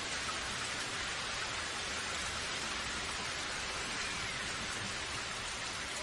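Steady rushing of a waterfall and stream pouring over rocks.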